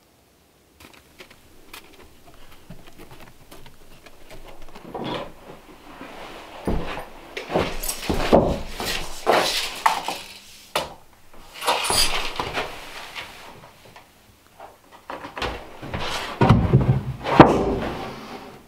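Wooden boards knocking and clattering as they are handled and laid onto a wooden frame, with irregular clunks, the loudest near the end.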